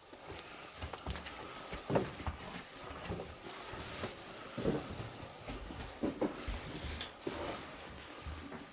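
Footsteps and movement in an empty room, with irregular soft knocks and thuds.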